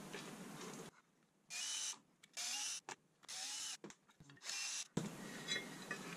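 Cordless drill-driver motor running in four short bursts of about half a second each, with its pitch rising and falling, separated by abrupt silences.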